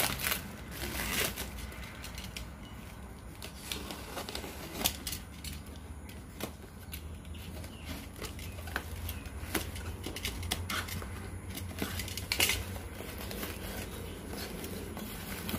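Parcel being unpacked by hand: black plastic wrapping rustling and tearing, packing tape being cut with a utility knife, and cardboard flaps scraping open, heard as scattered clicks and rustles. A low steady hum runs beneath.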